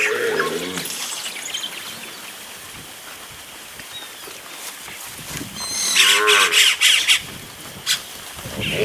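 Zebu cattle mooing: a call at the start, a louder, longer one about six seconds in, and another beginning near the end.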